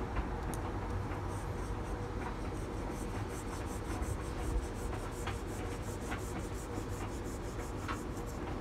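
Fingertips rubbing a vinyl decal down onto a textured-painted valve cover: faint dry rubbing with light scattered ticks, over a steady low rumble.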